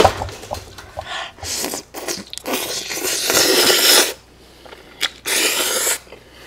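Close-miked eating sounds: biting into and chewing cheese-topped sweet-and-sour fried pork, in irregular noisy stretches with a sharp click just before the last one.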